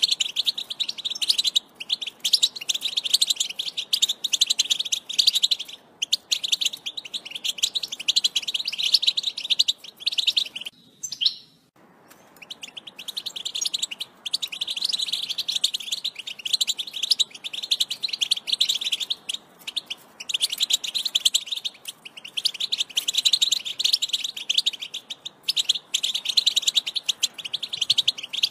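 European goldfinch singing: a fast, continuous twittering warble of chirps and trills, broken by a pause of about a second near the middle.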